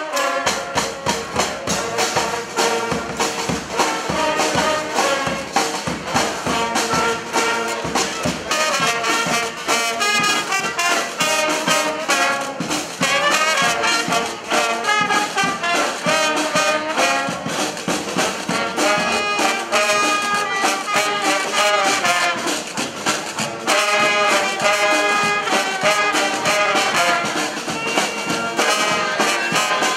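Street brass band playing an instrumental tune: trumpets and trombones carrying the melody over drums keeping a steady beat.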